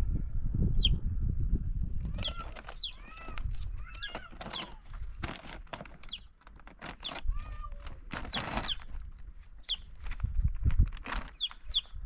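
Plastic sheeting rustling and crinkling in quick irregular crackles as it is spread out and handled, with birds calling repeatedly over it.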